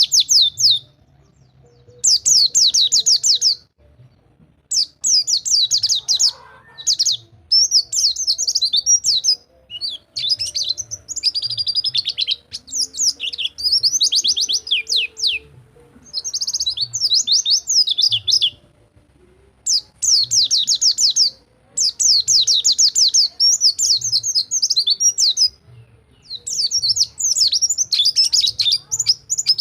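Pleci (white-eye) singing its 'rol tembak' song: quick, high trilled phrases of one to two seconds each, repeated with short pauses between them.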